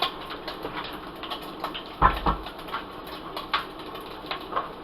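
Peppers and onions frying in hot oil in a pan, crackling and popping irregularly, with a louder knock about two seconds in.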